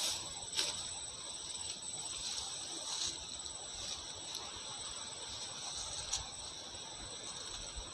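Steady, high, shrill insect chorus of several even tones, with a few short crunches of footsteps and brushing through grass.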